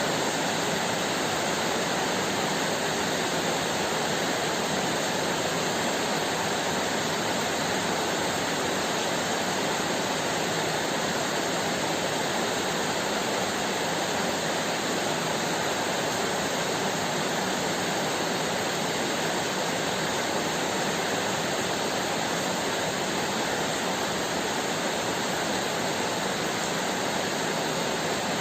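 Heavy rain falling steadily, an even hiss with no let-up and no thunderclap.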